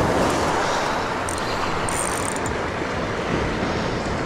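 Ocean surf rushing and washing in, a steady noise that swells briefly near the start.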